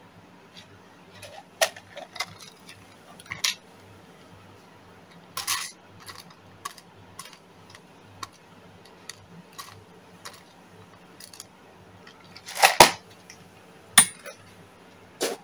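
Scattered clicks, taps and light rustles of small hard objects being handled, the loudest a short clattering knock about three-quarters of the way through and a sharp tap soon after, over a steady low hum.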